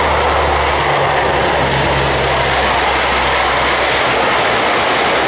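Lockheed C-130 Hercules's four turboprop engines running as the aircraft rolls along the runway: a steady, loud roar with a low propeller hum that fades about four seconds in.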